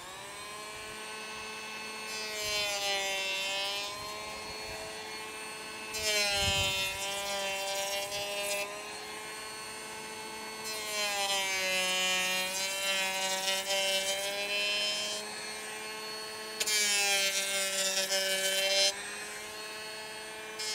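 Bosch 12V cordless planer (GHO12V-08) running with a steady motor whine, cutting along the edge of an LP engineered-wood siding board in four passes. Each pass adds a louder hiss of chips being shaved off, and the whine drops slightly under the load.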